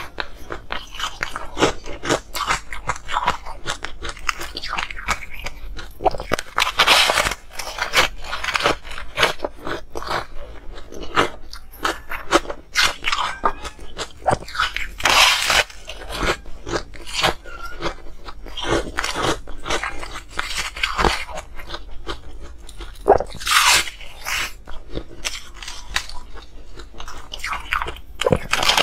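A person biting and chewing a thin slab of blue-tinted ice: a loud crunching bite about every eight seconds, with a steady run of crackly crunches from the chewed ice in between.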